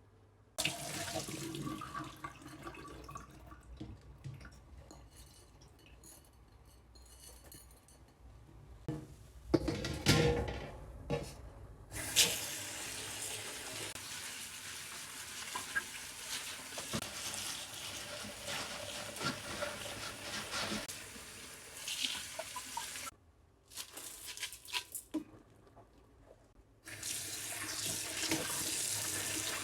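Water running from a kitchen tap into a sink, with a few sharp knocks of things being handled under it. The water stops for a few seconds past the middle, then runs again near the end.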